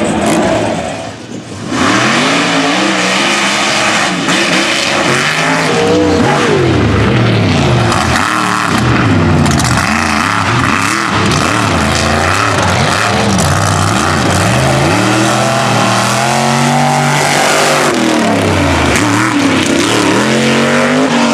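Big-tired race trucks' engines revving hard on a dirt track, the pitch climbing and dropping again and again as the throttle is worked. There is a brief lull about a second in.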